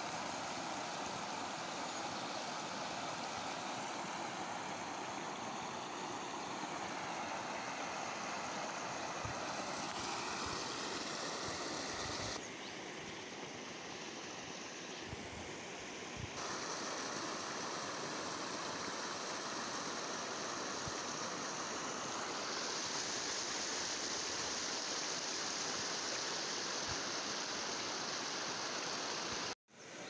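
Mountain stream rushing over rocks and pouring into a pool, a steady rushing noise. It goes quieter for a few seconds midway, turns hissier later on, and cuts out briefly near the end.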